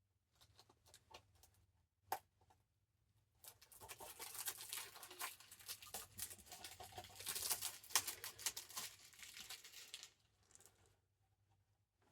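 Plastic shrink-wrap being torn and peeled off a DVD case, with dense crinkling from about three and a half seconds in to about ten seconds, after a few light clicks of the case being handled.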